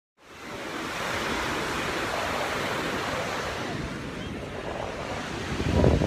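Ocean surf washing on a beach, fading in at the start, with wind rumbling on the microphone that grows louder near the end.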